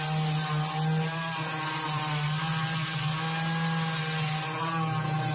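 Pneumatic orbital sander running steadily against steel edges, a constant hum with a high hiss, smoothing out grinding marks and taking off sharp edges.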